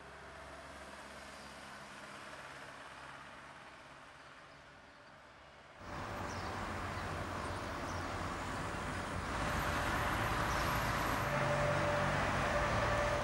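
City street traffic ambience: a steady hum of road traffic, faint at first, then jumping abruptly louder about six seconds in and growing a little louder again near the end.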